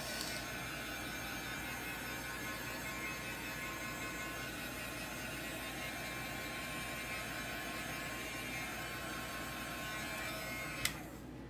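Hand-held heat gun running steadily, blowing hot air to dry a wiped chalkboard, then switched off with a click near the end.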